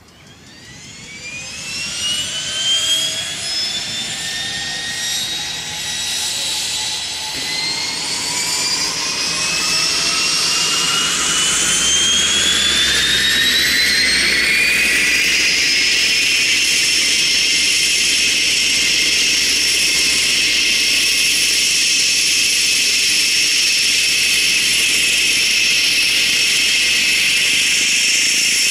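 Cessna 208B Grand Caravan's Pratt & Whitney Canada PT6A turboprop starting up: a turbine whine that climbs in pitch and loudness for about fifteen seconds as the engine spools up, then settles into a steady high whine with a low hum beneath as it runs at idle.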